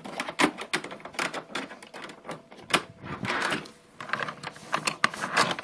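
Irregular clicking and clattering of Lionel toy train cars being handled and their couplers snapped together on the track.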